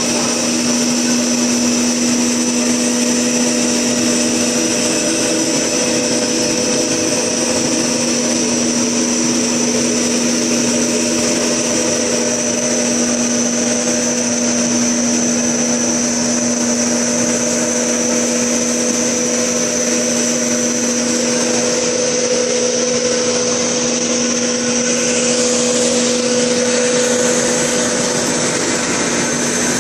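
1.2 m LDPE blown film extruder line running: a steady low machine hum with a steady high whine over it.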